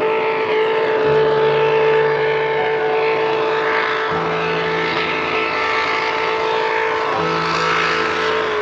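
Open racing motorboat's engine running flat out at a steady high-pitched drone, its pitch holding level, with the rush of the hull through the water beneath it.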